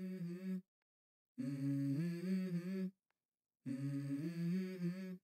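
Hummed vocal melody opening a song: short phrases of a few steady notes, with brief pauses between them.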